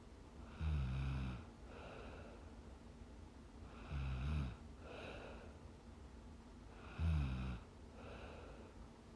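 A sleeping young woman snoring: three low snores about three seconds apart, with softer breathing between them.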